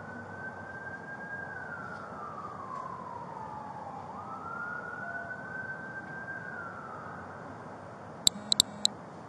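An emergency vehicle siren wails, rising and falling slowly twice. Near the end, four sharp cracks come in quick succession within about half a second, louder than the siren.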